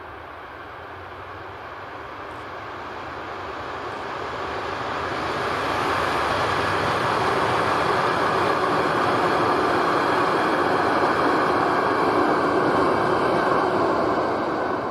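Timber freight train hauled by a Vossloh G2000 diesel locomotive approaching and passing. The sound builds over the first six seconds, then the wagons' wheels roll past on the rails as a loud, steady noise that falls off near the end as the last wagons go by.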